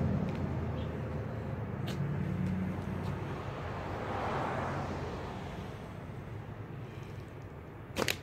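Low rumble of road traffic, slowly fading, with another car swelling and passing by about four seconds in. Near the end comes a quick, sharp double snap, as a slingshot is shot.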